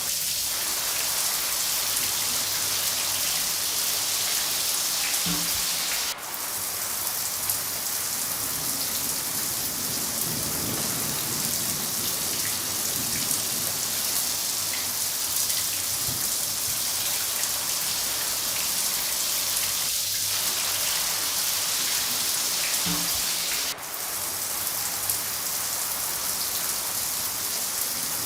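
Steady, heavy rain falling, a dense even hiss with a brief drop in level twice, where the looped recording restarts.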